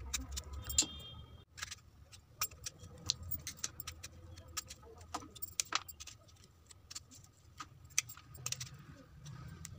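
Irregular sharp clicks and taps of a small knife slitting baby eggplants, with the cut eggplants dropped into a steel bowl of water.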